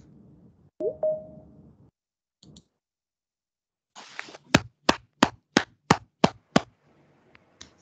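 A single person clapping close to a microphone, about seven claps at roughly three a second, as applause at the end of a talk.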